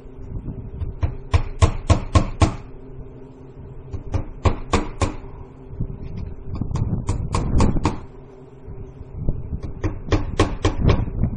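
Hammer driving nails to fasten vinyl siding to a shed wall: four bursts of quick blows, four to six strikes each at about four a second, a few seconds apart.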